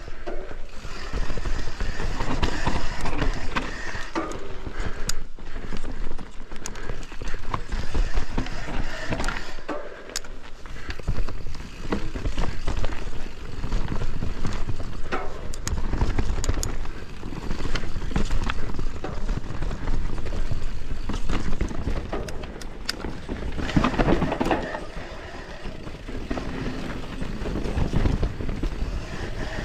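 YT Capra Core 3 MX mountain bike ridden down a rough trail: tyres running over rock and roots, with many sharp rattles and knocks from the bike and a strong low rumble of wind on the microphone, rising and falling with the terrain.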